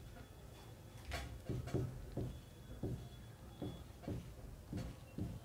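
Dry-erase marker writing on a whiteboard: a run of short, uneven strokes with light squeaks as a word is written out.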